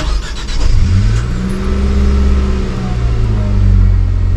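Nissan Frontier pickup's engine starting, heard from inside the cabin: a click, then the engine catches about a second in and revs up in a brief flare before easing back toward idle.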